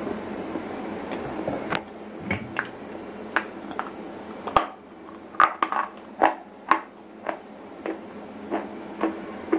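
Close-miked crunching of dry white shele stone being bitten and chewed: a string of sharp, separate crunches, one or two a second, loudest through the middle.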